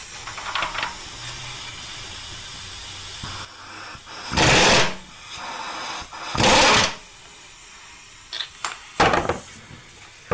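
Pneumatic impact wrench hammering in two bursts of under a second each, then a few quick short blips, as it spins loose the threaded oil-filter centre section on a Subaru EJ257 block. A steady hiss of air comes before the bursts.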